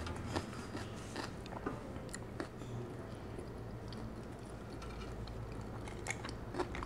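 Close-miked eating: chewing and small wet mouth clicks and crunches, thickest in the first couple of seconds. Two sharper clinks about six seconds in as a glass of ice cubes is moved.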